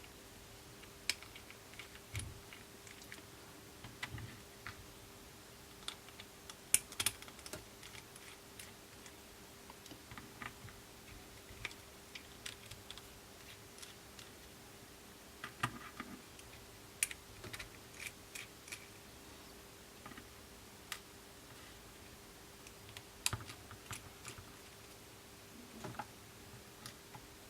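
Scattered light clicks and taps of small hand tools against a phone's metal and glass parts during a repair, coming at irregular intervals over a faint steady hum.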